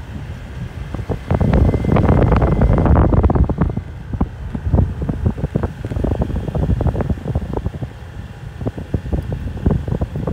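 Motorcycle riding on a rough dirt forest road: engine running under loud wind buffeting on the microphone, which swells a second or so in, with frequent sharp knocks and rattles from the bumpy track.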